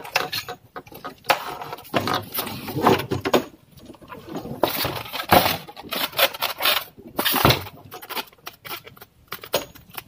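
Hands handling plastic plumbing parts, fitting a white plastic pressure relief valve onto a water heater's inlet: irregular clicks, taps and scrapes.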